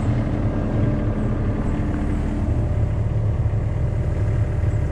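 ASV compact track loader's diesel engine running steadily with a low rumble.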